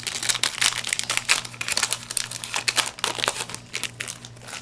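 Foil wrapper of a Yu-Gi-Oh! booster pack crinkling rapidly as the pack is opened, the crackling dying away near the end.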